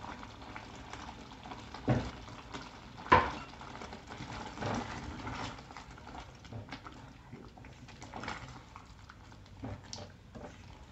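A spoon stirring and scraping thick tomato sauce with sliced sausages in a pot, with soft wet squelches. Two sharp knocks of the spoon about two and three seconds in, then lighter scattered clicks.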